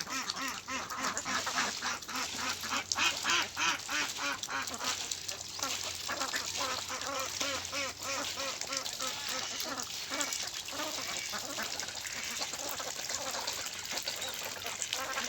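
A flock of domestic ducks quacking, many birds calling over each other in quick, repeated quacks.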